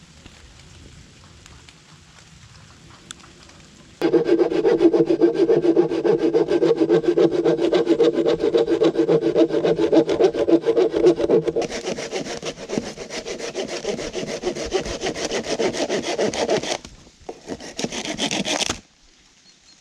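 Hand saw cutting through a wooden plank with fast, even strokes, starting about four seconds in. The sawing pauses for a moment near the end, resumes briefly and then stops.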